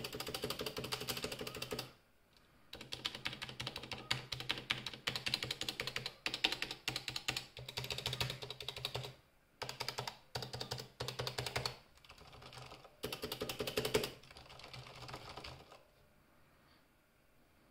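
Fast typing on a Corsair Strafe RGB MK2 mechanical keyboard with stock Cherry MX Silent Red switches: quick runs of damped key presses broken by short pauses, thinning out near the end and stopping about three-quarters of the way through.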